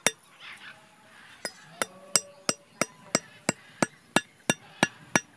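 Sharp knocks on a bamboo stake being hammered into the ground: one knock, then a steady run of about three a second starting about a second and a half in.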